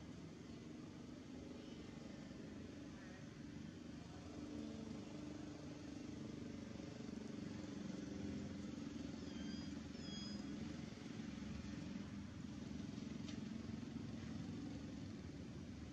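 Low, wavering engine hum of a distant motor vehicle, growing somewhat louder about four seconds in. A few brief high chirps come near the middle.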